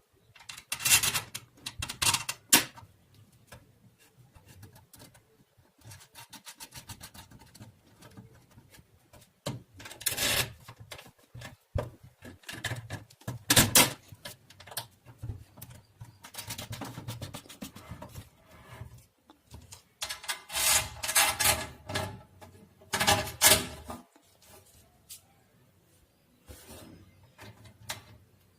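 Close handling noises of small electronic parts and wiring: irregular bursts of rubbing and scraping with sharp clicks, separated by quiet stretches.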